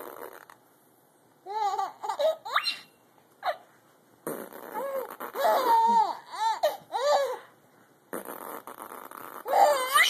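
Baby laughing in short bursts of high, squealing giggles, answering spells of breathy, hissing funny noises made by a man.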